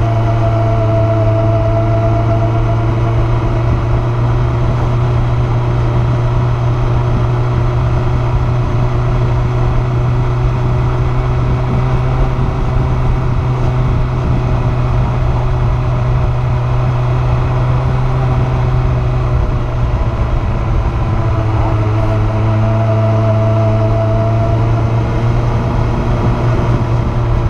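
Kawasaki ZZR1400 (Ninja 1400) inline-four engine running at steady cruising revs on the move, a strong low hum with a brief ease-off and pickup about twenty seconds in.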